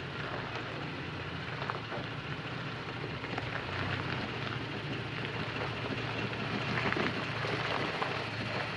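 Toyota Tacoma crawling slowly over a rocky dirt trail: a low, steady engine hum under the crackle and crunch of tyres rolling over gravel and rock.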